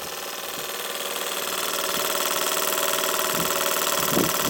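Restored early Stuart model steam engine running steadily under steam, a fast, even mechanical beat. It grows a little louder over the first couple of seconds.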